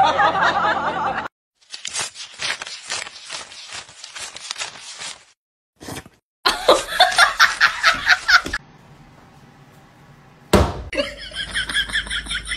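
Human laughter in quick pulsing bursts, in several short segments cut abruptly one after another.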